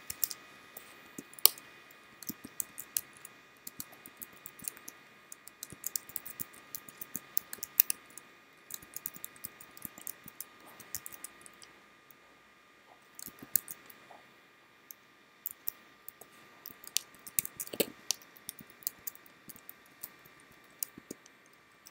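Typing on a computer keyboard: keys clicking in quick irregular runs with short pauses, over a faint steady whine.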